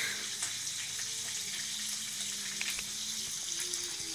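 Steady sizzling hiss with scattered faint crackles, like food frying in oil, over a faint low steady hum.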